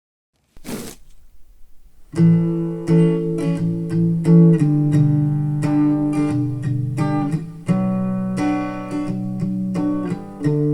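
Acoustic guitar strumming chords, the intro of a song played back through a hi-fi bookshelf speaker and picked up by a microphone. A brief noise burst comes just under a second in, and the guitar starts about two seconds in.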